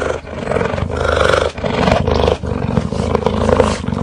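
Big cat roaring and growling: a string of calls, each about a second long, with short breaks between them.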